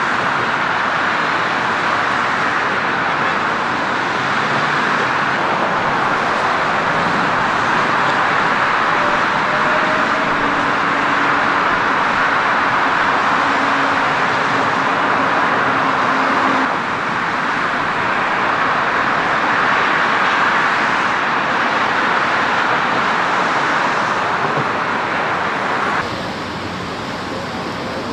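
Steady outdoor background noise like distant road traffic, with a faint low drone around the middle; the level drops slightly near the end.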